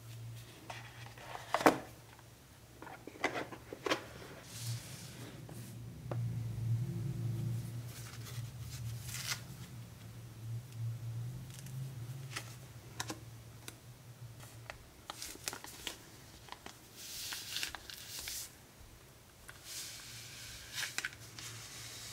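A smartphone and its packaging being handled: scattered sharp clicks and taps, with short bursts of rustling near the end. A steady low hum runs underneath and is loudest in the middle.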